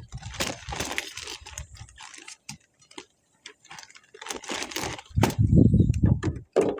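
Plastic seed-tray parts clicking and rattling as they are handled and pressed together. About five seconds in there is a louder, deeper rumble lasting about a second.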